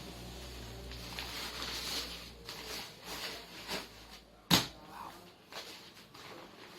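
Tent and its packing being handled and unpacked: rustling over the first couple of seconds, then a few soft knocks and one sharp knock about four and a half seconds in.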